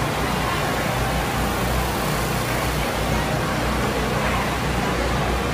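Loud, steady crowd ambience: a dense wash of many voices and noise, with low bass music underneath.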